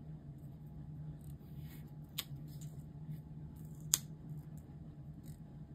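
Scissors snipping paper: two sharp snips about two seconds apart, the second louder, with light paper and sticker-sheet rustling between them.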